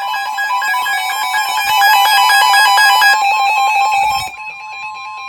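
Emergency Alert System tones from a NOAA Weather Radio broadcast: rapidly switching data-burst tones layered over a steady high-pitched alert tone. The sound drops in level a little over four seconds in, leaving mainly the steady tone.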